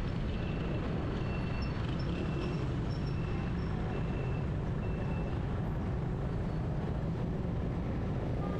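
Steady city traffic and road noise with a low engine rumble. A series of short, evenly spaced high beeps, about one every three-quarters of a second, stops about five seconds in.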